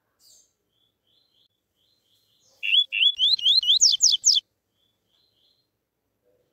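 Male coleiro (double-collared seedeater) singing its tuí-tuí song: a loud, quick run of about eight rising whistled notes, each climbing higher than the last, starting about two and a half seconds in and lasting under two seconds. Faint short chirps sound before and after it.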